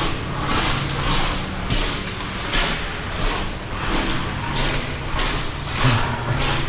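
Boots taking steady walking-pace steps through shallow creek water inside a tunnel, each step a short splashing hiss, about one and a half a second. A steady low hum runs underneath.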